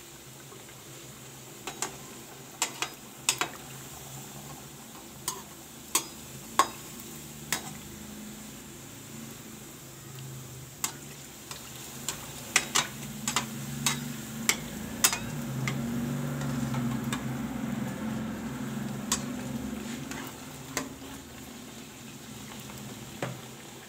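Puris deep-frying in hot oil in a metal pot: a steady sizzle with many sharp clicks and taps scattered through it, getting louder in the middle.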